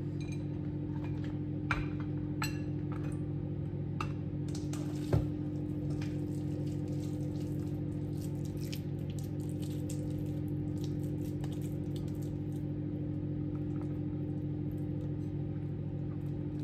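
Microwave oven running with a steady hum, heating cabbage leaves, with a few light clicks over it.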